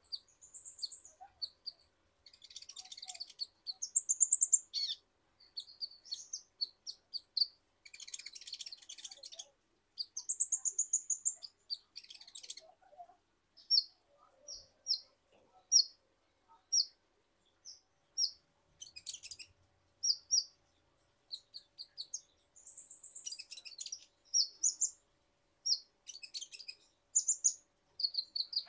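Kolibri ninja sunbird singing a rapid, high-pitched twittering song. Dense runs of chirps alternate with a series of evenly spaced single sharp notes, about one or two a second, in the middle.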